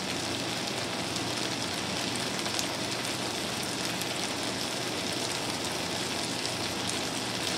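Diced vegetables and tomatoes sizzling steadily in olive oil in a stainless steel sauté pan, an even fine crackle.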